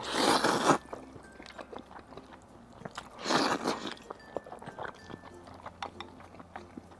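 A person slurping instant noodles from a bowl of hot pot broth, two short loud slurps about three seconds apart, with soft chewing between them.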